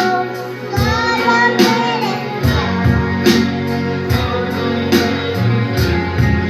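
A girl singing a Christian worship song over instrumental backing, with bass, guitar and a steady beat.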